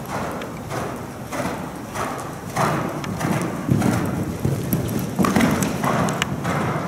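Hoofbeats of a shod horse cantering on the sand footing of an indoor arena, in an even rhythm of about one stride every 0.6 seconds.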